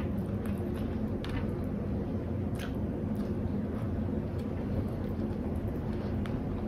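A steady low background hum, with a few faint crinkles as fresh lettuce leaves are folded by hand around the wrap's filling.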